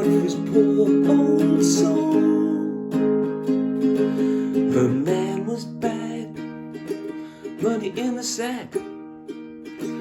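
Instrumental break of an acoustic song: strummed plucked-string accompaniment under held melody notes.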